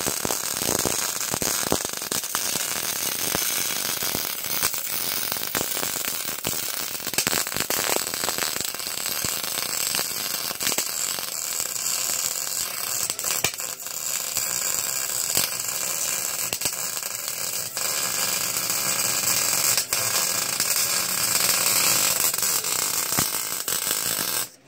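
Wire-feed welder arc crackling steadily while a seam on an exhaust pipe is welded in one long continuous bead, cutting off near the end.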